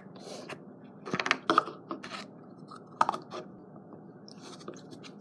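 Scattered light clicks and taps from hands handling slime and its containers, a cluster about a second in and a couple of single clicks near three seconds.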